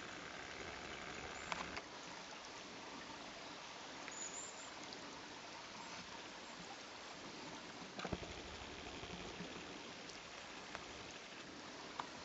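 Steady rushing outdoor background noise with a few faint clicks and knocks.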